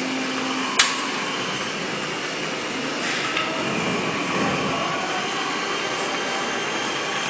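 White plastic link-chain conveyors running on an aluminium-frame assembly line, giving a steady mechanical running noise, with one sharp click about a second in.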